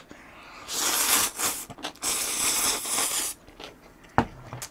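Hot ramyeon noodles slurped into the mouth in two long draws, about a second in and again at two seconds, then quieter chewing, with a short knock near the end.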